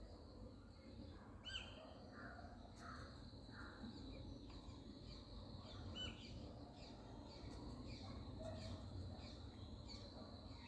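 Faint outdoor bird calls: scattered short calls, with a run of about three harsh calls a couple of seconds in, over a thin steady high whine.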